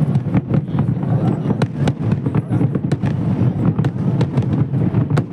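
Fireworks going off in quick, irregular succession: many sharp cracks and pops over a continuous low rumble.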